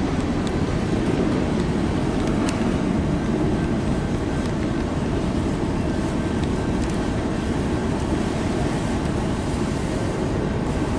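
Freight cars of a slow-moving manifest train rolling past, a steady rumble with a few faint sharp clicks from the wheels and couplers.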